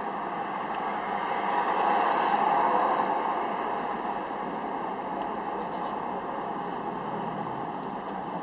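Car driving slowly in city traffic: steady road and engine noise that swells for a couple of seconds about two seconds in, then settles.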